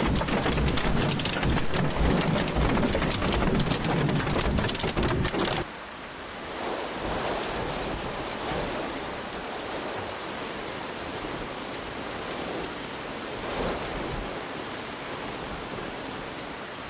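Hail pelting a car, heard from inside, as a loud dense rattle of countless impacts over a low rumble for about the first five and a half seconds. Then the sound drops abruptly to a quieter, steady hiss of falling rain.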